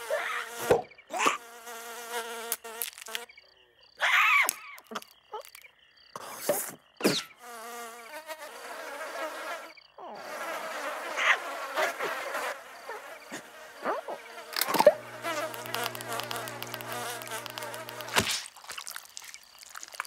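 Cartoon sound effect of a firefly buzzing, the buzz starting and stopping several times, with short swishing strokes in between.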